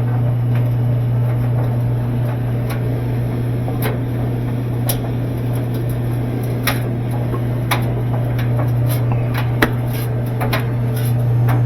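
Whirlpool-style top-load washer in its spin cycle: a steady motor hum with scattered light clicks and ticks, the clutch engaged and the replacement spin basket turning.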